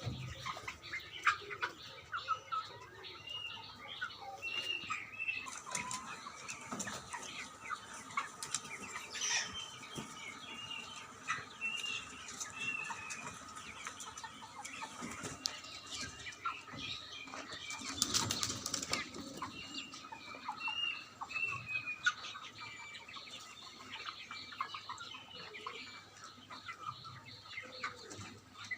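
A flock of broiler chickens: many short, repeated cheeps and clucks with wing flapping and scratching, and a louder flurry of flapping about two-thirds of the way through.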